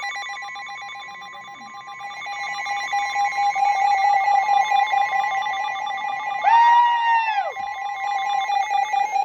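Emergency Alert System attention signal: a loud, steady electronic alarm tone on two pitches close to 1 kHz, sounding for a flash flood warning. About two-thirds of the way through, a person's brief high yell rises and falls over it.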